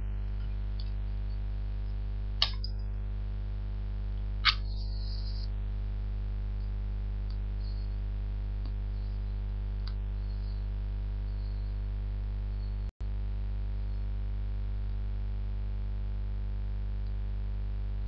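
Two matches struck about two seconds apart, the second flaring with a short fizz as it catches, for lighting a pipe. A steady electrical hum runs underneath, with a few faint soft ticks afterwards and a momentary dropout about two-thirds of the way in.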